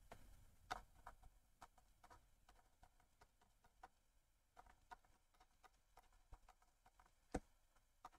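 Faint, irregular taps and clicks of a stylus writing on a tablet, with two sharper knocks, one under a second in and one near the end, over near-silent room tone.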